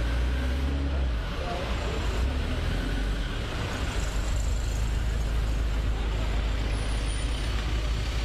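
An armoured police truck's engine running as it drives slowly past close by, with road noise and a steady low rumble.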